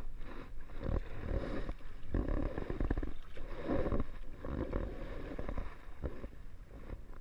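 Double-bladed kayak paddle dipping and splashing, with water slapping against the kayak's hull, in uneven surges about once a second.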